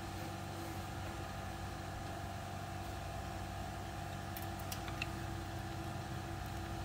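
Steady machine hum in the background, with a few faint clicks of wire terminals being handled at the battery posts about four to five seconds in.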